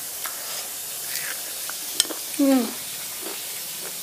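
Crunchy fried chicken being bitten and torn apart: a few crisp crunches and clicks, the sharpest about halfway through, over a steady hiss. A short voiced "mm" follows the sharpest crunch.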